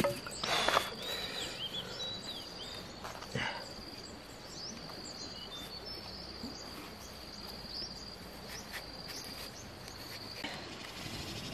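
An insect's steady, high-pitched trill that stops near the end, with scattered short bird chirps and a couple of soft knocks.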